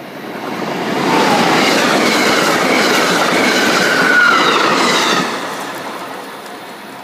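Amtrak Keystone electric passenger train passing close by at speed: a loud rush of wheels on rail that builds over the first second, holds for about four seconds as the cars go by, then fades away. A few thin wheel squeals slide in pitch over the rush.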